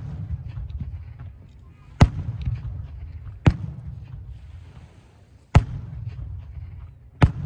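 Aerial firework shells bursting: a sharp bang every one and a half to two seconds, five in all, each trailing off in a short rumble, over a steady low rumble.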